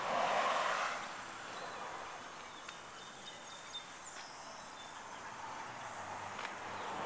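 Quiet outdoor ambience: a soft rush of noise for about the first second, then a faint steady hiss with a few faint high chirps and small ticks.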